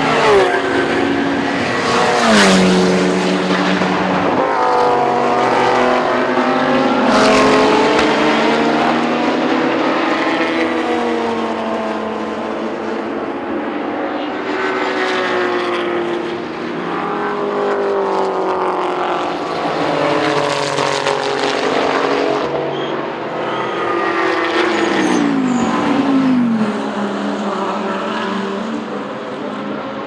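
GT race car engines at high revs as cars pass one after another, with gear changes and the pitch dropping sharply as each car goes by, several times.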